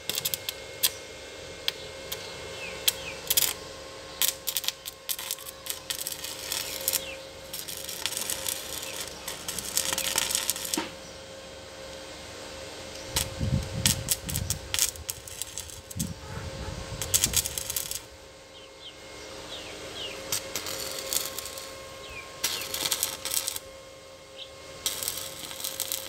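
Stick (arc) welding on the steel frame of a tractor's spring-tine cultivator: the arc crackles and sputters in irregular runs of a few seconds, with short pauses between them.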